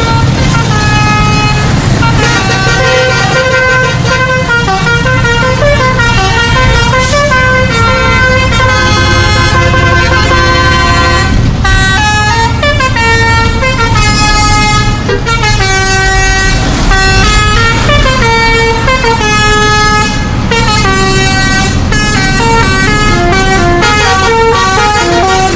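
A bus's musical horn playing a tune of quick notes stepping up and down, with short pauses, over the steady low running of the bus engine.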